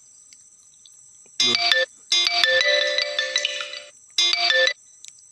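Electronic phone-ringtone melody playing in three bursts, the first about a second and a half in, each starting and stopping abruptly.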